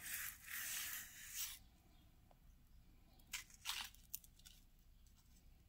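Faint handling noise from a beaded costume-jewelry necklace being turned in the hand: a soft rustle for about the first second and a half, then a few light clicks about halfway through.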